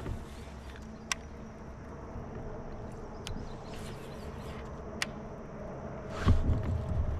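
Baitcasting reel being cranked to retrieve a lure, a steady whirring buzz, with two sharp clicks and a heavy low thump about six seconds in.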